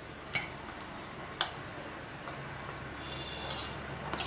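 A metal spoon stirring cauliflower florets through thick gram-flour batter in a stainless-steel bowl. The spoon clicks against the bowl a few times, the two sharpest clicks about a second apart near the start.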